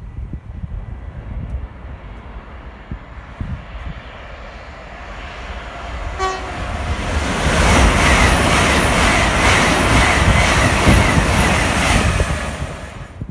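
GWR Hitachi Intercity Express Train approaching and passing at speed: a short single horn note about six seconds in, then loud train noise as it goes by for about five seconds, dying away near the end.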